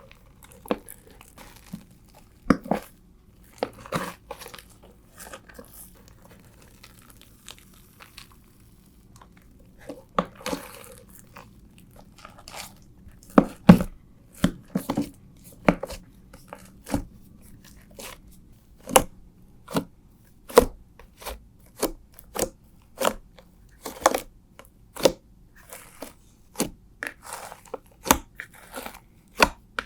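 Hands squeezing and poking a fluffy shaving-foam slime, making short sharp pops and clicks. They come a few at a time at first, then about one to two a second from about halfway in.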